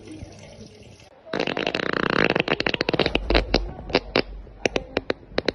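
A long fart: about a second in, a loud buzzing blast, which breaks into sputtering pops that come further and further apart.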